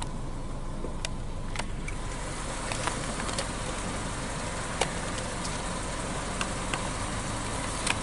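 Car idling, a steady low hum and hiss, with scattered light clicks. A sharper click near the end as a card is pushed into the pay-station card slot.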